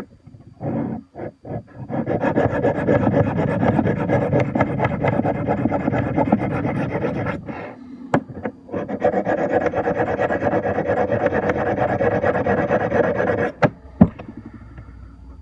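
Knife blade scraping across a sharpening stone of a Smith's Tri-Hone set. A few short strokes come first, then two long runs of steady scraping with a short break between them. Sharp clicks come near the break and near the end. The edge is being honed where dull, shiny spots still show.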